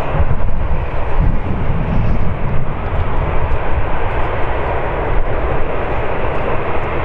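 Jet engines of a taxiing Qatar Airways Airbus A350, running at low thrust: a steady rushing hiss over an uneven low rumble.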